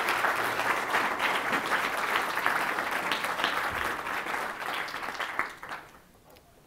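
Audience applauding: many hands clapping together, dying away about six seconds in.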